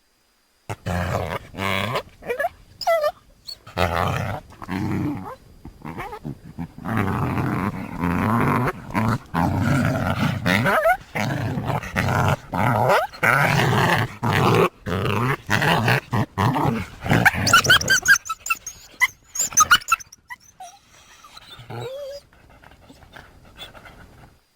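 Coyote vocalizations edited into a prehistoric-dog creature sound effect: a long run of choppy, rough, noisy calls, then a few short high calls rising and falling near the end, trailing off quieter.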